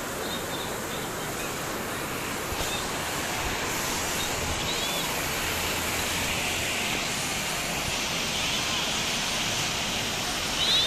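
Heavy rain falling steadily with wind, an even hiss that grows a little louder about four seconds in.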